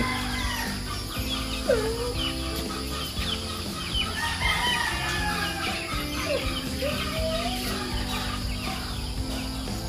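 Chickens clucking and a rooster crowing, a string of short rising and falling calls.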